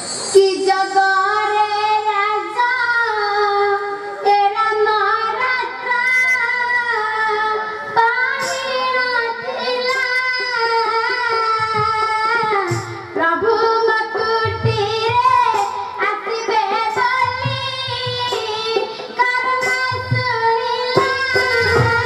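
A young girl singing a melodic Odia song in a high voice, with long held notes that glide and waver.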